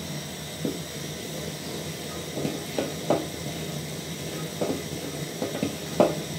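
Wooden spoon stirring thick, bubbling millet porridge in an aluminium pot, knocking and scraping against the pot's sides several times at uneven intervals, over a steady low hum.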